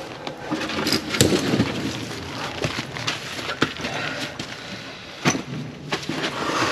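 Rustling, scraping and irregular knocks of a person squeezing through a tight gap.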